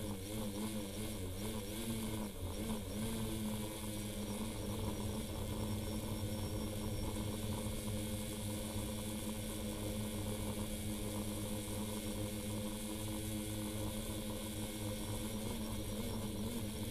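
Multirotor drone's electric motors and propellers humming steadily, heard through the drone's own onboard camera. The pitch wavers up and down for the first few seconds as it manoeuvres, then holds steady.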